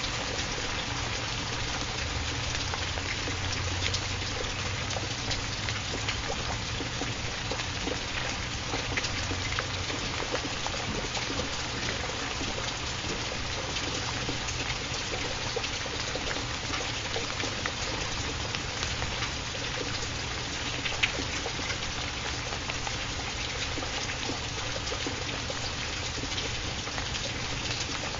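Steady rain: a constant hiss dotted with many small drop ticks, with a low hum underneath.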